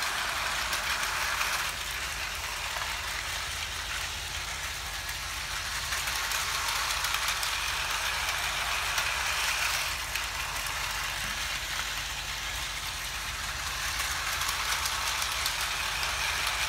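Small battery-powered motor of a Tomy E5 Shinkansen toy train whirring, with its wheels rattling on plastic track. The sound swells and fades as the train laps the loop, loudest around six to ten seconds in and again near the end.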